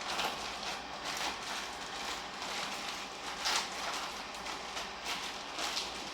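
A car air-conditioning divider's material rustling in about five short bursts as it is handled, over a steady hiss.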